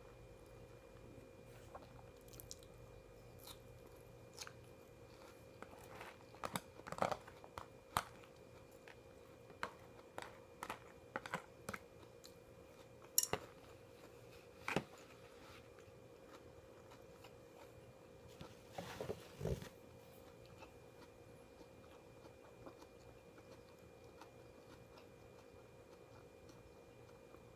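A person chewing and biting food close to the microphone, with scattered crisp, crunchy bites, mostly in the first half and again in a short burst about two-thirds through, over a faint steady hum.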